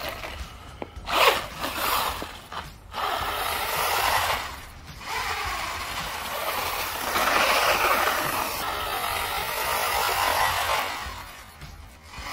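Kyosho Optima Mid four-wheel-drive RC buggy's brushed electric motor and gear drive whirring in short bursts of throttle. A longer run follows in the middle, rising and then falling away.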